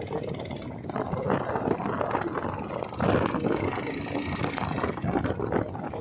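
Motorcycle engine running while the bike is ridden along a road, getting louder about halfway through.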